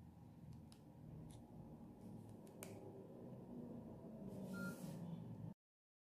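Faint room tone with a few soft clicks from a Nokia 6280 phone being handled, then the sound cuts off suddenly near the end.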